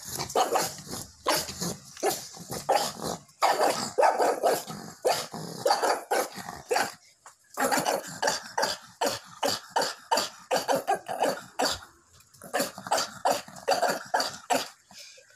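Small dog barking at a live crab in quick, repeated short barks, with a brief pause about seven seconds in; playful barking from a dog that wants to play with the crab.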